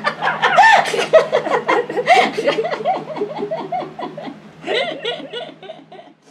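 A woman laughing in a long run of giggles. The laughter fades a little, flares again in a second burst about five seconds in, and dies away at the end.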